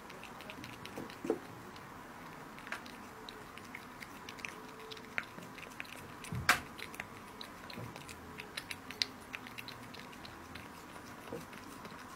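A cat chewing small pieces of raw meat from a ceramic plate: a close, irregular string of small wet clicks and smacks. The sharpest click comes about halfway through.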